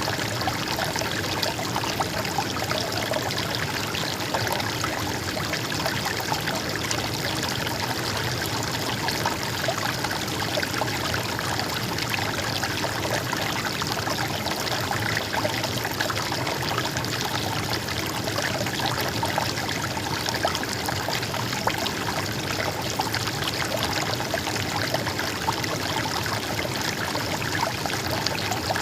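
Stream water trickling and babbling in a steady, unbroken flow.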